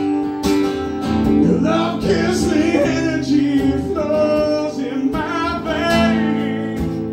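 Live male vocals with guitar: strummed chords, then long held, sliding sung notes over the guitar.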